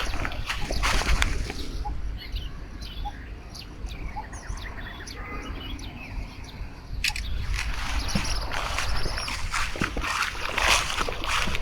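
Small birds chirping and calling in quick short notes, over a steady low rumble and bursts of noise that are louder in the second half.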